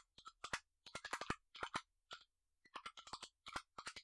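Typing on a computer keyboard: a quick, irregular run of keystrokes, some in fast clusters, as a password is entered.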